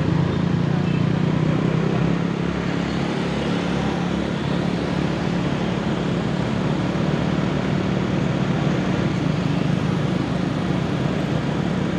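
Motorcycle running at a steady cruising speed, its engine a steady low hum under road and wind noise, heard from the rider's own bike.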